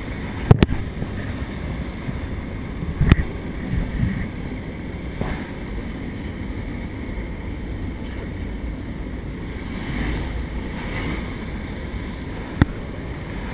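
Steady drone of a skydiving aircraft's engine and propeller heard inside the cabin during the climb, with a few sharp knocks, the loudest about half a second in, another about three seconds in and one near the end.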